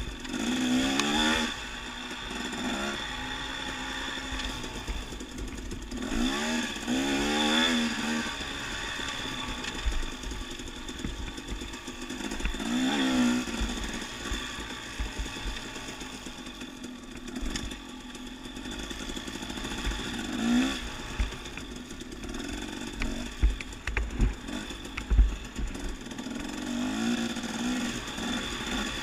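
Dirt bike engine heard from the rider's helmet, revving up and dropping back again and again as the bike rides a rough singletrack trail. About three-quarters of the way through, a few sharp thumps stand out as the loudest moments.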